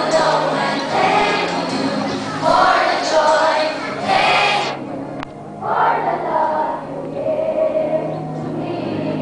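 A choir of schoolchildren singing a song together in unison, in long held phrases with a brief break between lines about five seconds in.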